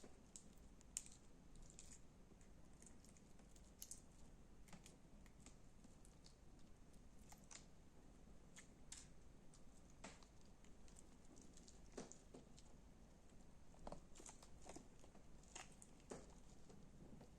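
Slime being squeezed and stretched by hand, giving faint, irregular little clicks, pops and crackles a few times a second.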